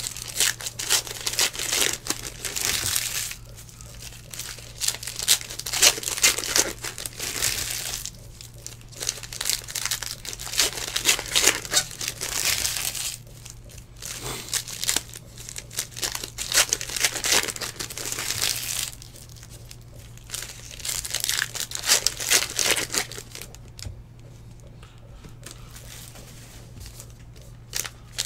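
Trading cards sliding and flicking against each other as a stack is flipped through by hand, with a foil pack wrapper crinkling and tearing; the rustling comes in bursts with short pauses between them.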